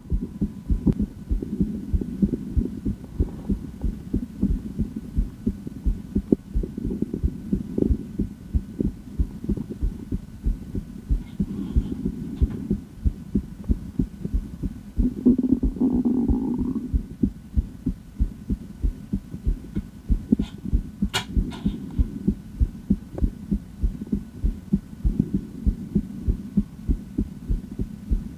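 A woman's heartbeat picked up at the chest by auscultation: a steady, even train of low beats. There is a brief scuffing noise about halfway through and a few sharp clicks a little after.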